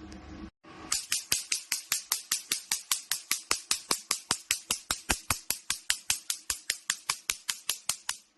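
Picosecond laser handpiece firing repeated pulses, each a sharp snapping click, evenly spaced at about five a second; the run starts about a second in and stops just before the end.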